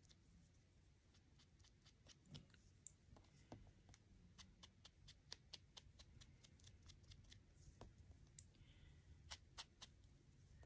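Near silence with faint, scattered light clicks and taps from small die-cut paper pieces and an ink blending tool being handled on a craft mat.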